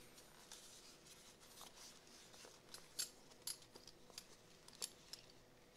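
Faint handling of a leather belt: soft rubbing with a scatter of small clicks, a few sharper ones about three, three and a half and nearly five seconds in.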